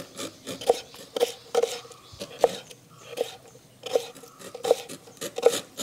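Knife cutting tender jackfruit into pieces on a cutting board: a series of short cutting strokes, about two a second.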